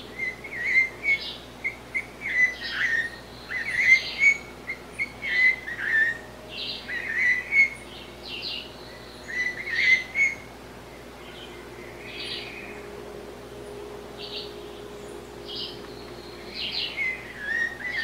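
Blue-bellied parrot (sabiá-cica) calling: a run of short warbling, whistled notes with sharper, higher notes between them. The notes come thick through the first ten seconds, thin out to a few scattered notes, then pick up again near the end.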